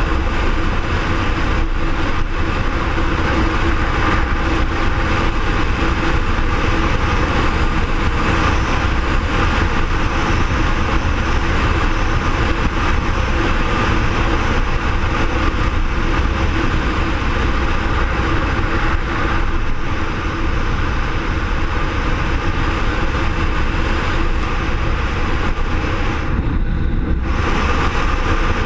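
BMW R1200R's flat-twin engine running steadily while riding at road speed, mixed with wind rushing over the microphone. The high hiss briefly drops away near the end.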